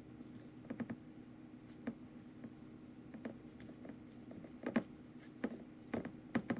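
Faint, scattered light taps and clicks of hands handling small craft pieces on a tabletop, over a low steady hum.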